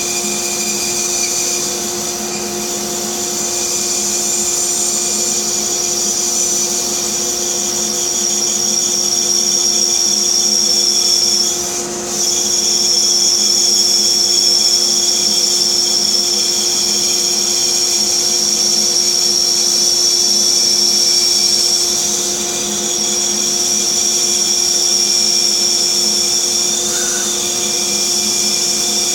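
Bandsaw running steadily with its blade cutting through a fir block, with a brief dip in the sound about twelve seconds in.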